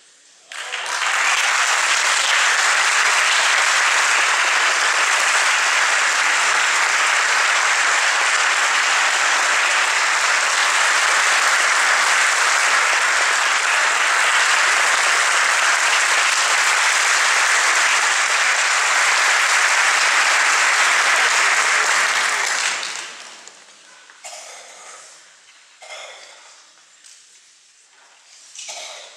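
Audience applauding steadily for about 22 seconds; the clapping dies away quickly, leaving a few small scattered sounds.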